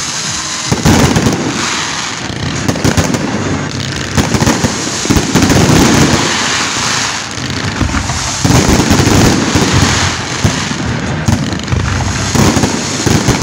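Fireworks barrage: aerial shells and comets going off in a dense, continuous string of sharp bangs, with louder clusters of reports every second or two.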